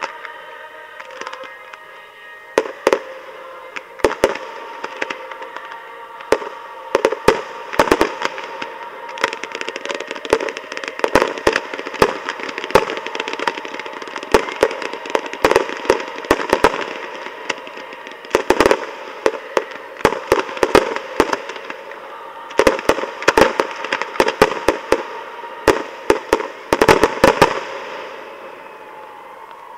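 Fireworks display: aerial shells bursting in rapid volleys of sharp bangs, the heaviest barrage just before the end, after which the bangs stop.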